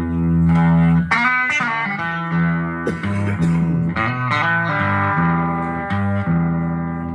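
Electric guitar played through a guitar amplifier: a run of ringing chords and single notes.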